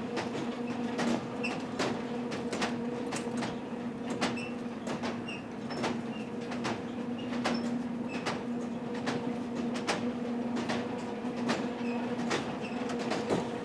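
A carousel platform turning: a steady low hum under a running rattle of clicks and knocks, about two a second, with a few faint short squeaks.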